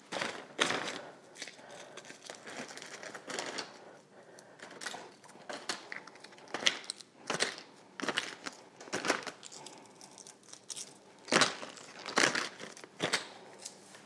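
Plastic zip-top bag crinkling in short, irregular bursts as handmade ornaments are put into it.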